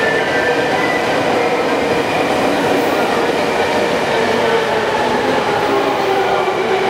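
Steady noise of a subway train running in an underground station, over the bustle of commuters walking through the concourse.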